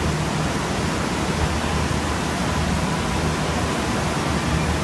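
Rushing water of an indoor surf-simulator wave: a steady, loud rush with a low hum underneath.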